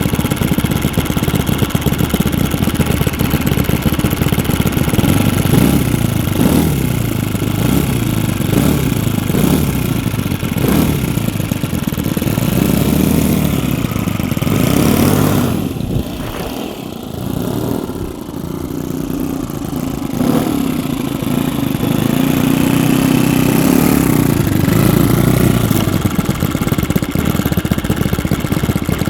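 Two four-stroke model glow engines, an O.S. FS-62V in front and a Saito FA-62 at the rear, running together and driving 13x6 propellers, throttled up and down. About halfway through they drop back toward idle for a few seconds, then open up again and run steadily.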